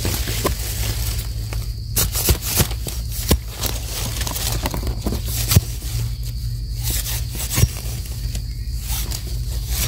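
Close-up rustling of leaves and scraping of loose soil, with scattered small crackles and clicks, as termite mushrooms are dug and pulled from the ground by hand. A steady low rumble runs underneath.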